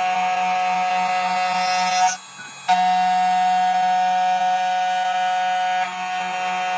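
CNC key cutting machine's spindle motor running with a steady whine. It cuts out briefly about two seconds in, starts again, and drops a little in level near the end.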